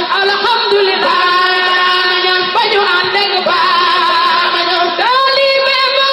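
Islamic devotional singing: a voice holds long, wavering notes, and a new phrase swoops up into a held note about five seconds in.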